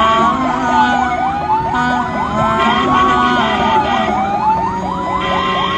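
Ambulance sirens sounding together: one wails slowly, rising and falling about every two and a half seconds, while another yelps in fast repeated sweeps.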